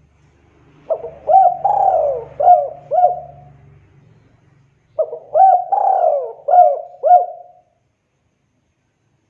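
Spotted dove (tekukur) singing two phrases of its cooing song, each a run of several low coos, about four seconds apart.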